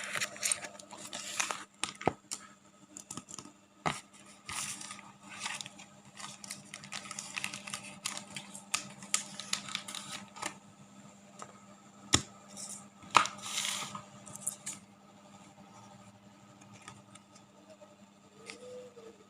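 Hand handling sounds: repeated short rustles and scrapes with a few sharp clicks, over a steady low hum. The rustling thins out after about fifteen seconds.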